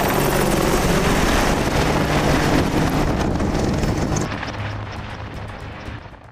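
AH-64 Apache attack helicopters flying overhead: loud rotor and turbine noise. It eases off about four seconds in and fades out at the end.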